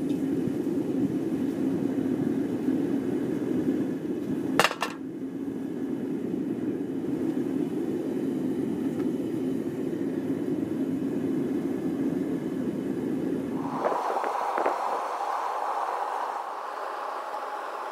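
Propane-fired backyard foundry furnace burner running with a steady low roar, with a sharp metallic clink about four and a half seconds in. About fourteen seconds in the low roar cuts out abruptly, leaving a quieter, higher-pitched hiss.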